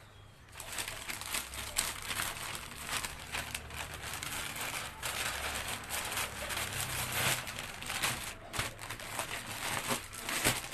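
Thin plastic carry bag crinkling and rustling as clothes are pushed into it and it is folded over, starting about half a second in.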